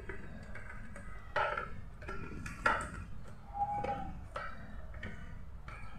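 Plastic casing of a mini evaporative air cooler being handled, giving a series of light clicks and knocks, about half a dozen spread over several seconds.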